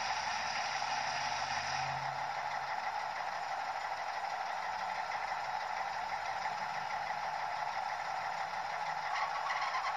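Sound-equipped model SU46 diesel locomotive playing its diesel engine idling sound through its small onboard speaker: a steady drone with little bass. A higher hiss runs over it for about the first two seconds.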